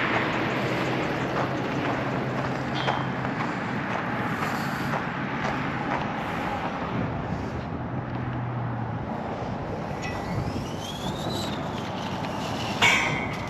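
Steady noise of passing road traffic, with a low hum that comes and goes and a rising whine about ten seconds in. A sharp knock near the end is the loudest moment.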